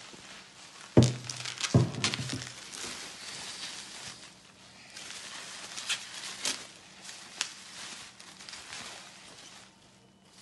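Plastic bubble wrap rustling and crinkling as a glass jar is unwrapped by hand, with many small crackles. Two loud knocks come about one and two seconds in.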